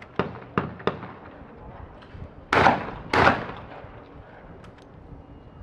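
A 12-gauge shotgun fired twice, about two-thirds of a second apart, at a pair of skeet targets. The two loud reports each ring out briefly. Several fainter sharp cracks come in the first second.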